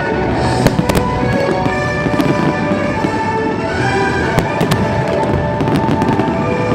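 Aerial fireworks going off in a series of sharp bangs at irregular intervals, the loudest about two-thirds of a second in and again past the middle, over music playing throughout.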